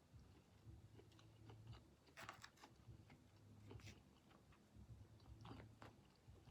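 Faint chewing of crunchy stir-fried hibachi vegetables, with a few crisp crunches and mouth clicks scattered through.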